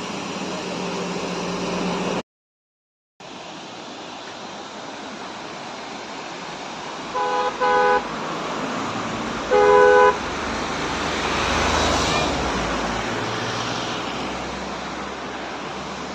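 A vehicle horn blares in two short honks about seven seconds in, then one longer honk near ten seconds, over a steady rush of noise from the waterfall and passing traffic. The sound cuts out completely for about a second near the start, and swells as something passes around twelve seconds.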